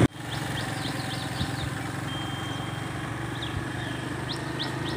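A two-wheeler's engine runs steadily underneath, with birds giving short, high chirps over it.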